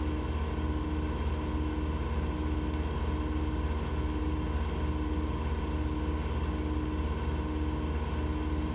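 Engine running steadily at full throttle with no load, a constant low drone with a slight regular pulse a little more than once a second.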